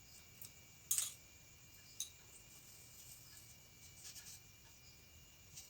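Scissors snipping double-sided tape around a small magnet: a few short, sharp snips and clicks, the sharpest about a second in.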